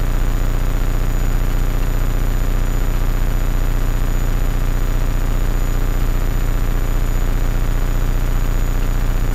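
Hummingbird kit helicopter in cruise flight heard from inside its cockpit: steady, loud rotor and engine noise with a heavy low drone and a rapid, even beat, and a thin high whine over it.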